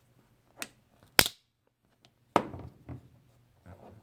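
Vintage pocket knives being handled: several sharp clicks and knocks of metal, the loudest a little over a second in and another strong knock about halfway.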